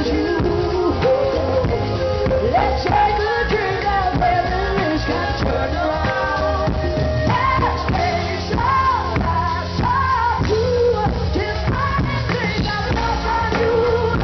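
Live band music with a singer: sung lines held and bent over a steady bass and full band.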